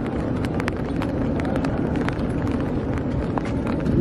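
Raindrops hitting an umbrella, many scattered sharp ticks, over a steady low rumble.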